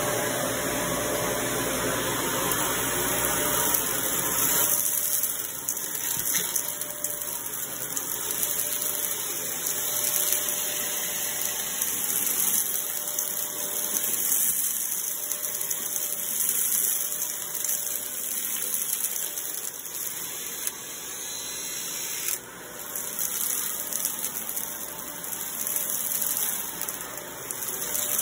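Shark upright vacuum cleaner running on carpet with a steady airy hiss, sucking up a pile of sequins, beads and glitter that crackle and rattle through the nozzle.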